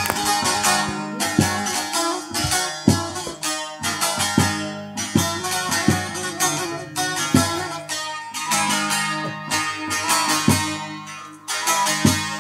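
Bağlama (saz), the Turkish long-necked lute, played solo: a quick, steady run of sharp strummed and plucked notes.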